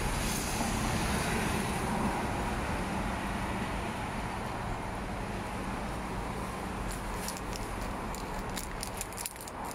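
Steady road traffic noise from cars passing on a multi-lane road, with a few light clicks near the end.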